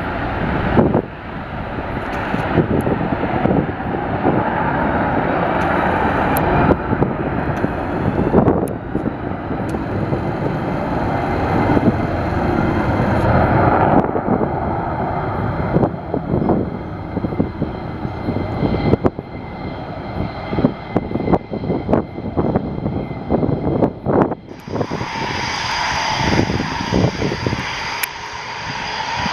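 Jet aircraft engines running loudly, a dense roar with a steady high whine that grows stronger in the last few seconds.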